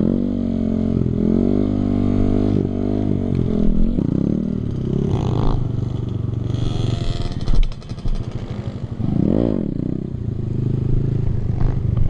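Kawasaki KLX D-Tracker's single-cylinder four-stroke engine held on the throttle through a circle wheelie, its pitch rising and falling as the throttle is worked. It drops off briefly with a few clicks about seven and a half seconds in, then revs up and down again.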